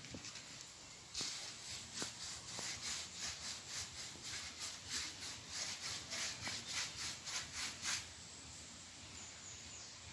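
Rhythmic hand strokes scrubbing against brick, about three a second, from brushing or sanding the bricks. They start about a second in and stop about eight seconds in.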